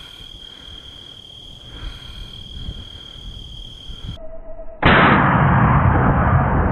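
Crickets chirping steadily, then about five seconds in a sudden loud blast that stays loud and rough to the end: the AR rifle in 7.62x39 firing at the boar.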